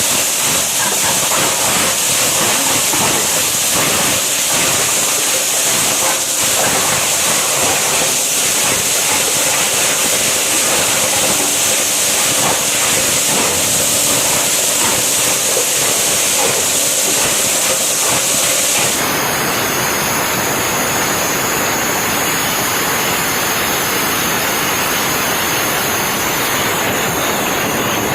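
10 hp plastic bottle shredder running and grinding PET bottles: a loud, continuous grinding noise thick with crunching and crackling. About nineteen seconds in, the crackle thins out and the noise turns smoother.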